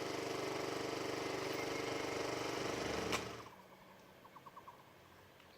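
A small motor-driven machine running with a fast, even rattle, cutting off abruptly about three seconds in, followed by a few faint quick ticks.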